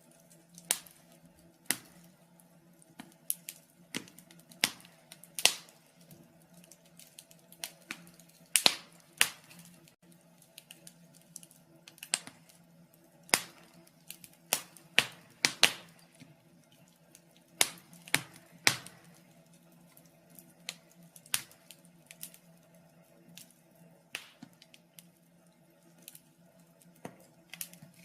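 Wood fire in a fireplace crackling, with sharp, irregular pops about every second, over a faint steady low hum.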